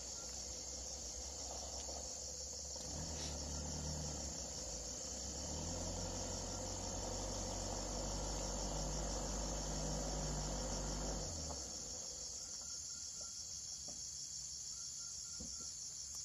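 A steady, high insect chorus buzzing without a break in the surrounding forest. From about three seconds in, a distant vehicle engine adds a low hum that grows slightly louder, then stops about eleven seconds in.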